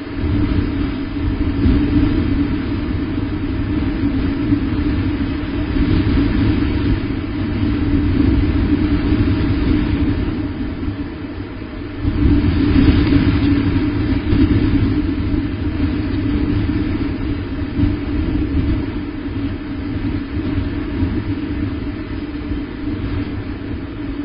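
Wind rumbling on the nest camera's outdoor microphone, a steady low roar that rises and falls in gusts, with a stronger gust about halfway through.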